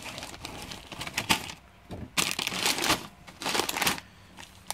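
Foil-lined plastic packet crinkling as it is handled and slid out of a cardboard box, with scattered small crackles and two longer bursts of crinkling in the second half.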